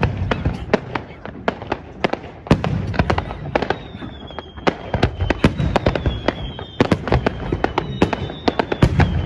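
Fireworks going off: a dense run of sharp crackling pops, with heavier booms about every two seconds.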